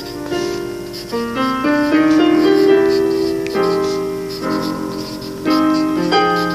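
Piano music: a melody of held notes over chords, the notes changing every half second or so.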